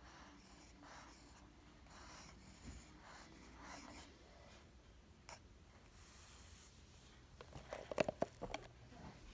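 Mechanical pencil lead scratching on notebook paper in soft, short strokes while writing cursive. Near the end comes a quick cluster of sharp clicks and knocks, the loudest sound.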